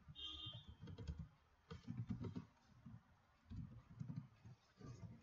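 Computer keyboard typing, faint, in several short runs of keystrokes.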